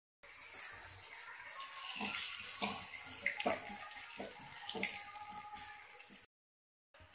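Garlic and spices sizzling in hot oil in a metal kadai, with a metal spatula clicking and scraping against the pan several times as they are stirred.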